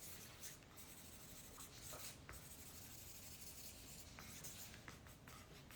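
Pen writing a dedication and autograph on a poster: faint scratching strokes, close to near silence.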